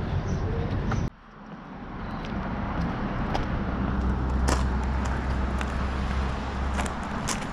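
Footsteps crunching on railway ballast gravel, roughly one a second, over the steady low hum of a motor vehicle that fades out shortly before the end.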